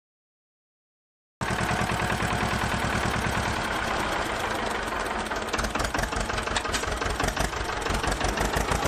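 Silence for about the first second and a half, then the small electric motor of a miniature model tractor's cement mixer runs steadily with a fast, even rattling chug.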